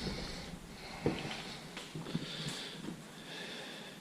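Faint breathing close to the microphone, with one soft knock about a second in.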